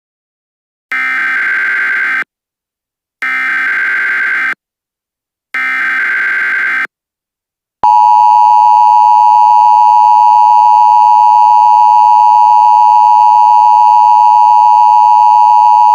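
Emergency Alert System header: three separate bursts of buzzing digital data tones, each a little over a second long with short gaps between. About halfway through, the loud, steady EAS attention tone begins and holds.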